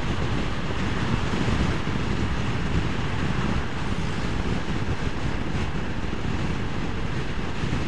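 Steady wind rush over the microphone of a rider on a moving Vespa scooter, with the scooter's running and road noise underneath.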